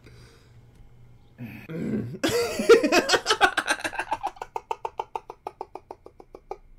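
A man laughing hard with a hand over his mouth: a loud burst about two seconds in, then a fast run of laugh pulses, about seven a second, that slowly fade away.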